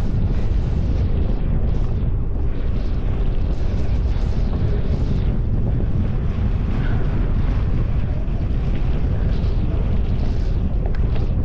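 Wind buffeting an action camera's microphone while riding: a steady, loud, low rumble with a shifting hiss above it.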